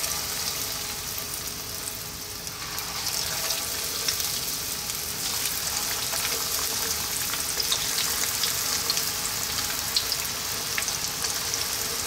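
Battered dory fish pieces deep-frying in a wok of hot sunflower oil: a steady sizzle with scattered sharp crackles, growing livelier a few seconds in as more pieces go into the oil.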